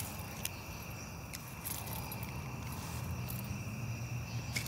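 Steady, high-pitched chorus of night insects, with several sharp clicks from handling the rod, reel and a just-landed largemouth bass.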